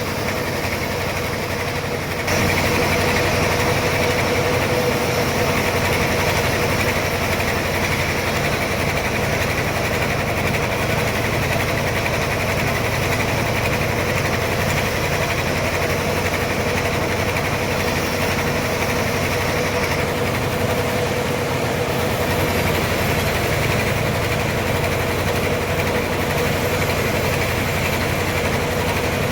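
Sawmill running steadily while sawing a trembesi log into planks: a continuous mechanical drone with a steady hum, stepping up louder about two seconds in and then holding.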